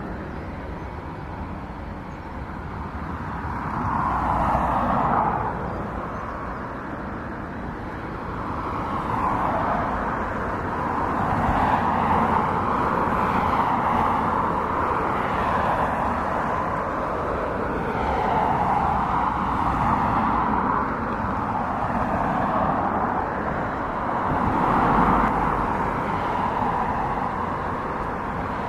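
Jet engines of a taxiing Airbus A320 at low thrust, a steady rushing whine that swells and eases several times as the airliner rolls past.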